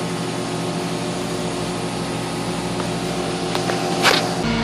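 Rollback tow truck's engine idling steadily, a constant hum. A brief rustle comes near the end.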